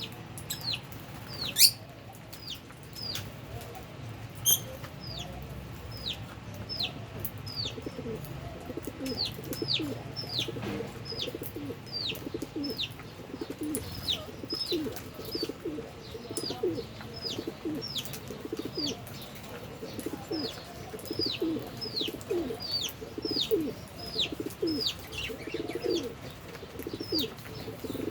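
Lovebirds in an aviary chirping: a steady series of short, high chirps, each falling in pitch, about two a second. Lower, softer calls join in from about eight seconds in, and there are two sharp clicks about two and four and a half seconds in.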